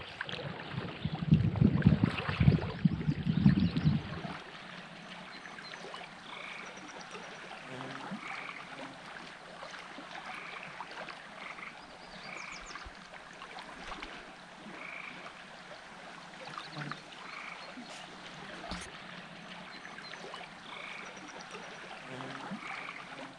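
Frogs calling: short croaks repeated about every one to two seconds over a faint steady background. The first four seconds carry a loud low rumble before the calls begin.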